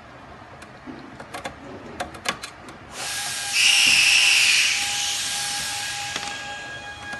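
A few sharp metal clicks and taps from a screwdriver, then a sudden loud hiss of escaping air about three seconds in that slowly fades, with a steady whistle-like tone under it.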